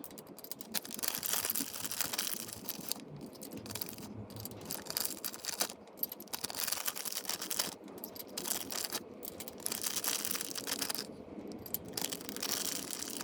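Irregular spells of metal rattling and clinking from engine parts and hand tools, with short pauses between them, as the pushrods and rocker arms are handled.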